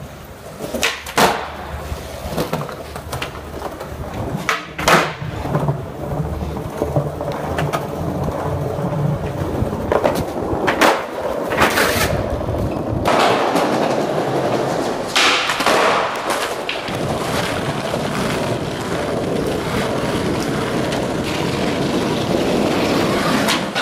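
Skateboard wheels rolling over smooth hard ground, broken by a series of sharp clacks in the first half. From about halfway through comes a steadier, louder rolling noise with a few more clacks.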